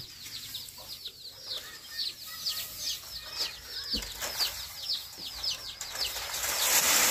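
Bird chirping: a quick, even run of high, falling chirps, three or four a second, with a louder hiss near the end.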